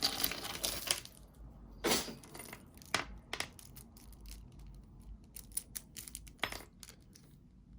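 Costume jewelry pieces clinking and rustling as they are handled and sorted, with scattered small clicks and a few louder clacks.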